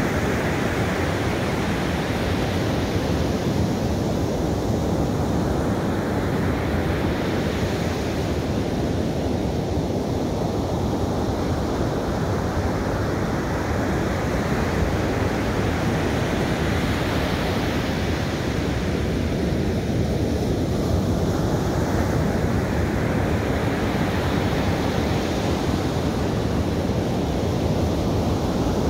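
Ocean surf breaking and washing up a sandy beach: a continuous rush of water that swells and fades every several seconds as each wave comes in.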